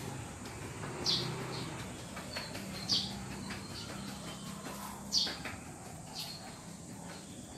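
A bird chirping, short high chirps every couple of seconds, over a steady low hum.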